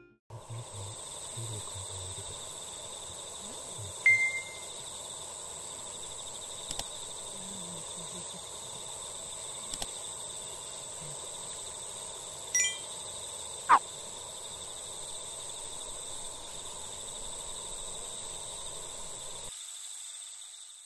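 Outdoor evening ambience: a steady high-pitched insect chorus, with a few brief sharp calls, the loudest a quick falling whistle about two-thirds of the way through.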